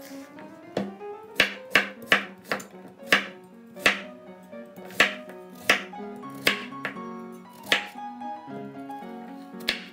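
Chef's knife slicing a raw carrot into rounds on a bamboo cutting board: a crisp knock as the blade goes through and hits the board, about a dozen cuts at an uneven pace, with a longer gap before the last one near the end. Background music plays underneath.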